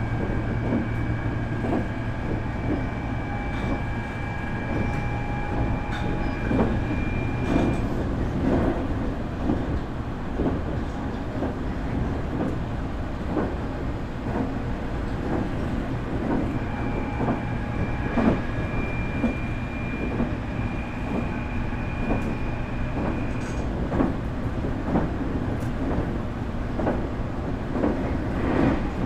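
Nankai 8300 series electric train running, heard from its motor car: the Hitachi two-level IGBT VVVF inverter and totally enclosed induction motors give a steady high whine. The whine holds for the first eight seconds or so, drops away, and returns from about 16 to 24 seconds. Under it are a constant rolling rumble and regular wheel clicks over the rail joints.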